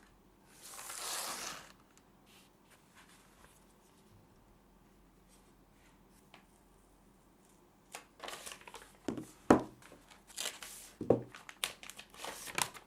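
Packaging being handled in unboxing: a short rustle or slide about a second in, then from about eight seconds a busy run of crinkling, knocks and taps.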